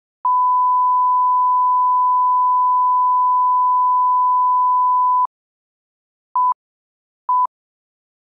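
Broadcast line-up reference tone played with colour bars: one steady pure tone held for about five seconds, used to set audio level. It is followed by two short beeps of the same pitch a second apart, the countdown pips of a TV commercial leader.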